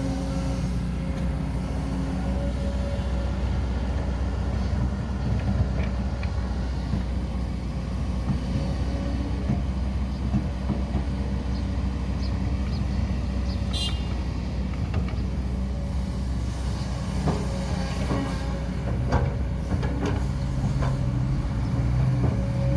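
Steady engine drone of working earth-moving machinery, with scattered clicks and knocks over it.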